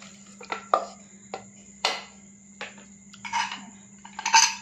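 A wooden spoon knocking and scraping against the walls of an aluminium pressure cooker while stirring a chicken curry: a series of sharp taps, the loudest about two seconds in, then two short clattering scrapes near the end.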